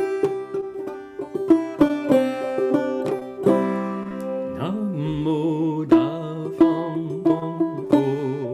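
Banjo picked in a steady run of notes. About halfway through, a low voice joins in, singing long wavering notes over it.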